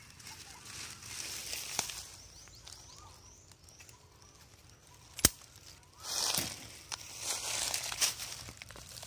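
Footsteps and rustling through dry grass and dead leaves, quieter in the middle, with one sharp click about five seconds in.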